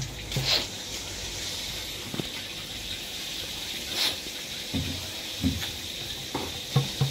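Steady hiss of water running from a hose along a concrete drain, with a few short low thuds in the last couple of seconds as a bamboo tube is handled while being packed with fish.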